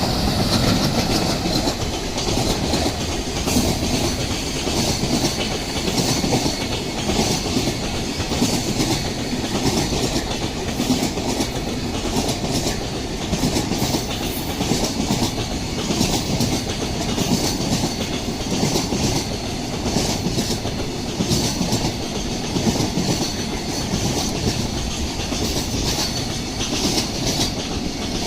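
Freight train hauled by an EF210 electric locomotive rolling slowly past, its wheels clicking steadily over the rail joints with a continuous rumble.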